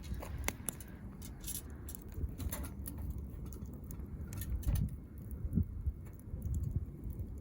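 Campfire crackling: scattered sharp pops and ticks over a low rumble.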